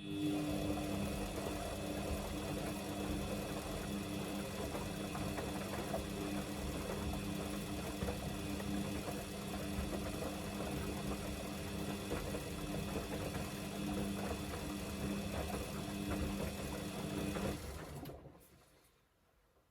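Samsung washing machine's drum motor turning the drum during the wash phase of a Darks 40°C cycle, with a steady hum. It starts abruptly, runs for about seventeen seconds, then winds down to a stop.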